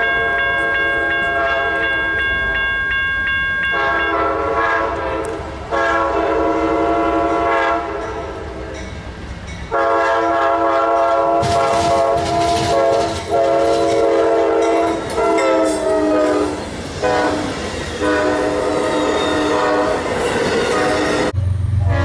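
A locomotive's multi-chime air horn playing a horn show: a string of chords, some short, some held for several seconds, separated by brief gaps. The chords stop near the end and a low hum takes over.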